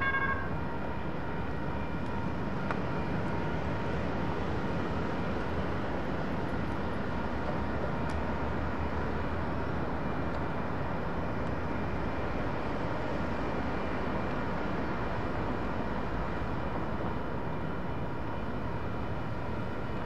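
Railroad crossing bell gives one short ring as the signals start up, then stops instead of ringing on, leaving steady street noise and a low rumble while the gates lower. The bell sequence is malfunctioning, which the uploader suspects is caused by heat.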